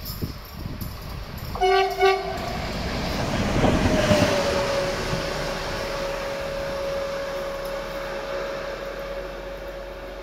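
Vossloh DE 18 diesel-electric locomotive sounding two short horn blasts as it approaches, then passing close with wheel and engine noise. After it passes, a steady tone drops slightly in pitch and fades as the locomotive runs away.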